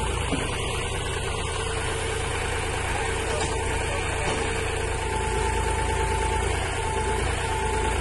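Tractor's diesel engine running steadily while it powers a Bull tractor-mounted backhoe digging. A thin high whine comes and goes in the second half.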